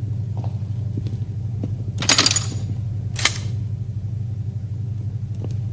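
A steady low pulsing hum with two short bursts of hiss: a louder one about two seconds in and a shorter, higher one just after three seconds.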